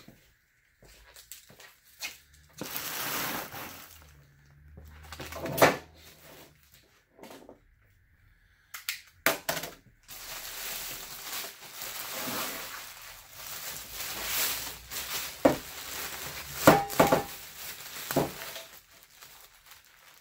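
Packaging being handled while a table saw is unboxed: rustling and crinkling of wrapping and cardboard, with several sharp knocks and clunks as parts are moved.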